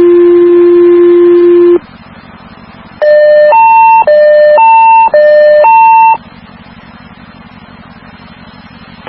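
Scanner radio dispatch alert tones: a long, steady low tone that cuts off about two seconds in, then after a short gap a hi-lo tone alternating low-high three times, followed by the open channel's hiss. This is the alert sounded before a dispatcher's page.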